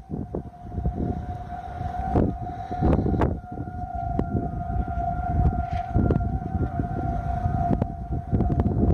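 Outdoor tornado warning siren sounding a steady, held tone during a siren test. A heavy low rumble of wind buffeting the microphone runs underneath it.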